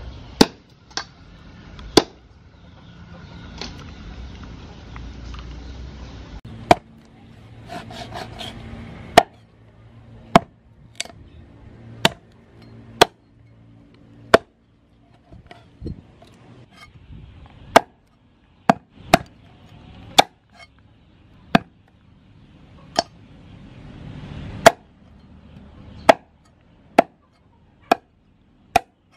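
Meat cleaver chopping a raw oxtail into rounds on a wooden chopping block: sharp, separate knocks, mostly about a second apart, with a pause of a few seconds early on.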